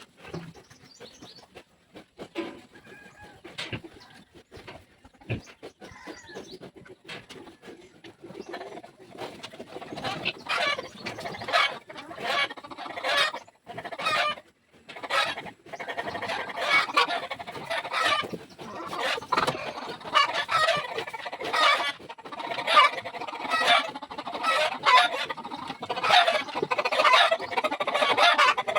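Repeated short animal calls, sparse at first, then busier and louder from about a third of the way in.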